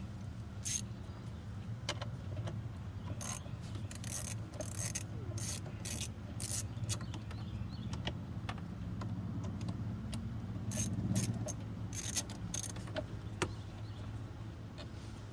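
Irregular metallic clicks and clinks of hand tools working on engine parts, over a steady low hum.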